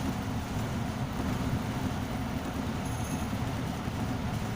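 Steady low rumble of a ship's engine heard on the bridge, an engine that is running with severe vibration.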